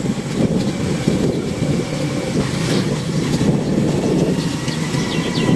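Wind buffeting the microphone while riding along a road, with steady vehicle and road rumble underneath.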